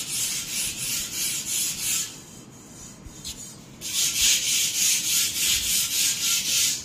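Sandpaper scrubbing rust off a steel straight-pipe exhaust tube with quick back-and-forth strokes, about four a second. The strokes pause about two seconds in and start again near four seconds.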